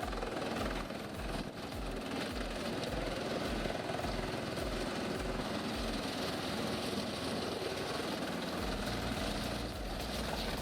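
Heavy machinery's engine running, with a low pulsing about twice a second that gives way to a steadier low drone about three-quarters of the way through.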